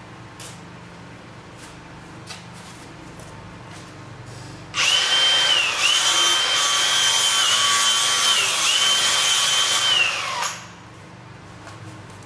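Cordless power tool motor running at high speed with a high-pitched whine for about six seconds, its pitch dipping briefly three times as it takes load, then winding down as the trigger is released.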